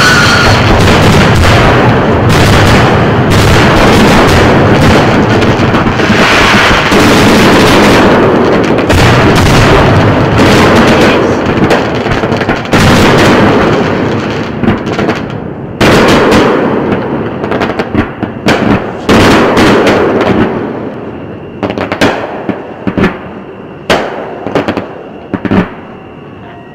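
Aerial firework shells bursting in a dense, continuous barrage of bangs and crackle. After about 14 seconds it breaks up into a dozen or so separate booms, spaced out and growing fainter.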